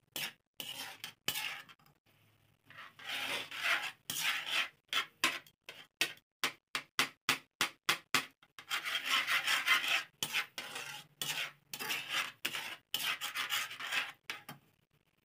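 Metal tongs scraping against a metal pan as they stir a wet, chopped mixture, in quick repeated strokes. The strokes run together into longer, denser scraping about three seconds in and again around nine seconds in.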